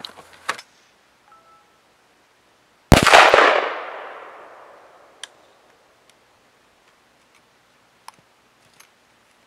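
A single rifle shot about three seconds in, likely a 5.56 NATO round from a 16-inch AR-15, very loud and sharp, with a long echo fading away over about two seconds. A few faint clicks follow.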